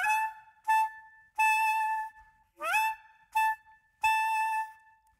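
Clarinet playing a short figure twice. Each time a note slides up into pitch, a short note follows, and then a longer held note, all at about the same high pitch.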